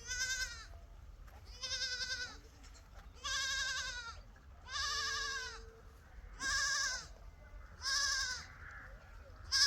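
Goats bleating: six high, quavering calls in turn, about one every one and a half seconds.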